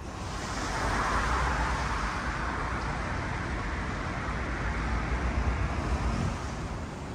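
Road traffic on a city street, with a vehicle going by, loudest about a second in.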